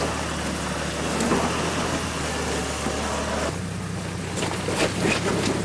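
Engine of a Jeep-based rock-crawling buggy running at low revs as it crawls up a rock ledge, a steady low hum under a noise haze.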